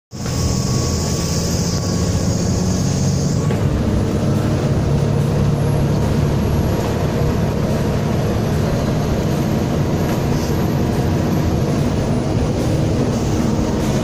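Volvo B7TL double-decker bus running on the road, its engine and drivetrain drone heard from inside on the upper deck. A high hiss sits over the drone for the first few seconds and stops about three and a half seconds in.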